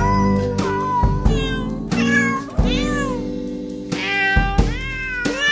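Music made of cat meows: rising and falling meows carry the tune over sustained notes and heavy bass hits every second or two.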